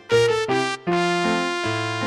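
Instrumental hymn music played on a keyboard: a few short, quick notes, then a chord held from about a second in.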